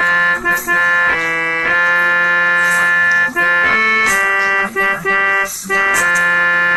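Telolet bus horn, a set of multi-trumpet air horns, playing a tune of loud held notes, several pitches sounding together, that change every fraction of a second to about a second with a few short breaks.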